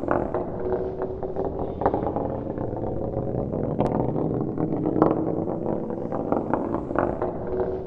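Metal ball rolling on a hard surface: a continuous rumble with light irregular clicks and a faint metallic ring.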